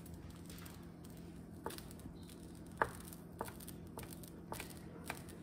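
Wooden spoon stirring thickened milk pudding in a small metal saucepan, with a few light separate knocks of the spoon against the pan, over a faint steady hum.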